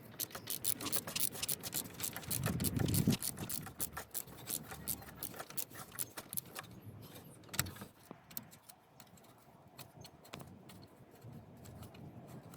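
Socket ratchet clicking in rapid runs while undoing a small E8 bolt on the radiator fan shroud, with metallic tool clinks. The clicks come thickest in the first half and thin out later, and there is a dull bump about three seconds in.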